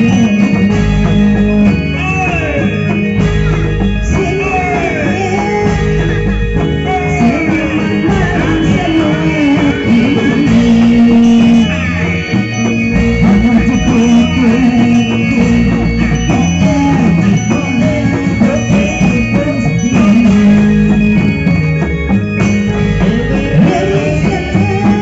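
Live reog music from Indramayu, played loud through loudspeakers: drums with sustained low tones under a lead melody that slides up and down in pitch.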